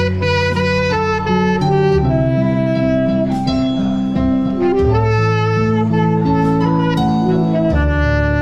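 Instrumental music, jazz-like: a lead melody of held notes over a moving bass line, with a few sharp percussive hits.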